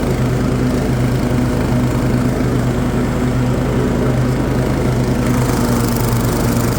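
Cub Cadet RZT-S zero-turn mower's 24-horsepower Kohler engine running steadily under way, with the mower deck's blades engaged.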